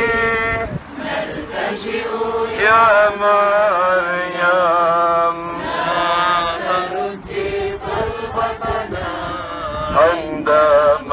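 Voices singing a slow, chant-like religious hymn, with held, wavering notes.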